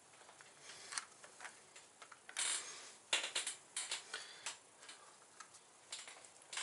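Scattered light metal clicks and ticks of a 4 mm Allen wrench working the bolts of a motorcycle's front sprocket cover, with a short scraping rustle about two and a half seconds in.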